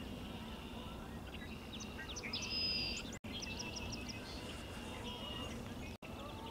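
Small birds chirping and trilling over steady low outdoor background noise, busiest about two and a half seconds in. The sound cuts out completely twice, very briefly, at about three and six seconds in.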